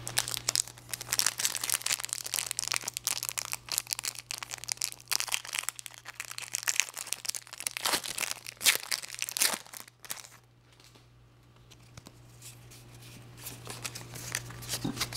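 Foil trading-card booster pack being handled and torn open: a dense, rapid crinkling and crackling of the foil wrapper for about ten seconds, then much quieter, with a few more crinkles near the end.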